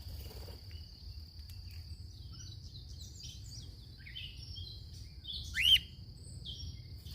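Birds chirping: a scatter of short chirps, with one louder rising-and-falling call near the six-second mark, over a steady high-pitched tone and a low rumble.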